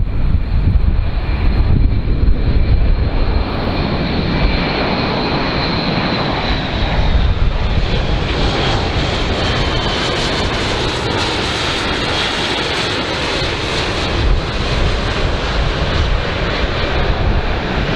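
Airbus A400M Atlas's four turboprop engines, with their eight-bladed propellers, running loudly as the aircraft flies low with gear down. A high whine over the engine noise drops slightly in pitch about six seconds in, and the sound grows hissier from about eight seconds in.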